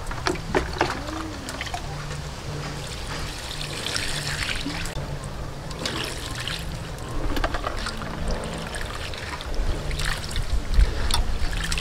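Water poured from a plastic bowl into an aluminium bowl of shredded vegetables, with splashing and wet handling as hands wash and squeeze the shreds.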